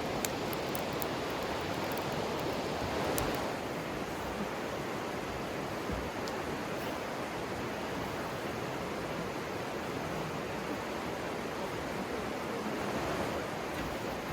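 River water flowing steadily, an even rushing noise, with a few faint sharp ticks in the first few seconds.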